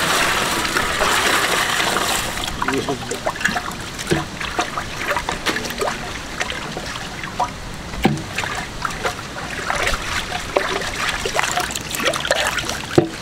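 Milk poured in a stream into a large steel pot for the first two seconds or so. Then the chocolate milkshake is churned with a handmade stick churner twirled between the palms, the liquid sloshing and splashing in the steel pot with small knocks.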